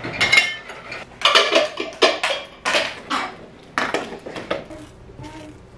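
Dishes clinking and clattering as a dishwasher is unloaded: a quick run of sharp china knocks with short ringing tails, thinning out to a few fainter knocks in the last couple of seconds.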